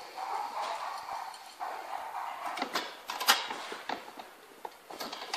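Knocks and clicks of a shower tray's support frame and threaded legs being handled and fitted, with a cluster of sharp knocks about halfway through and a few more later.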